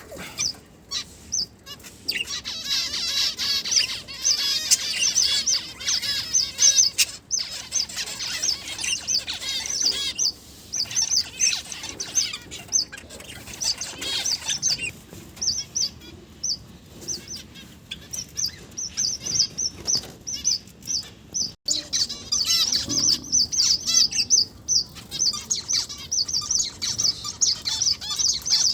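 Small pet finches chirping: a dense, rapid stream of short high-pitched chirps from several birds at once.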